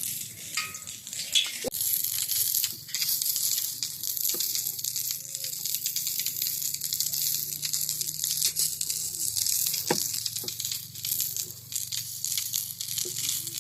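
Maandazi deep-frying in hot oil: a steady sizzle with constant fine crackling, and a couple of sharper clicks.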